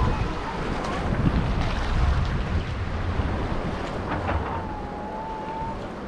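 Wind buffeting the microphone over surf washing on the beach. A thin high tone is held for about a second near the end.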